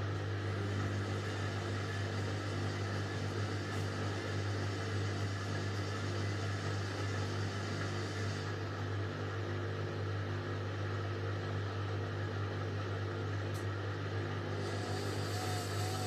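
Indesit front-loading washing machine running, its drum turning a load of laundry, with a steady low motor hum. A higher hiss over the hum drops away about halfway through and comes back near the end.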